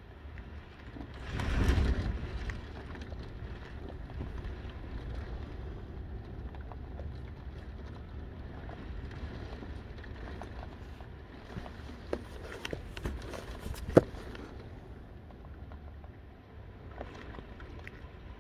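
Heavy wind-driven rain heard through a window glass, a steady wash that swells with a strong gust about a second and a half in. A few sharp taps come near the end, the loudest about fourteen seconds in.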